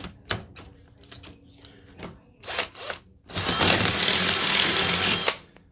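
A few handling knocks, then a power drill running for about two seconds with a 7/16-inch bit, opening up a bolt hole in a tool box to take a rivet nut. The drill stops abruptly.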